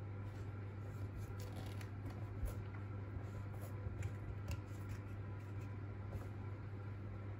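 Soft handling sounds of an iPad in a plastic case: fingertips tapping and swiping on the glass and scattered light clicks and rubs against the case as the Apple Pencil is drawn out of its holder. A steady low hum runs underneath.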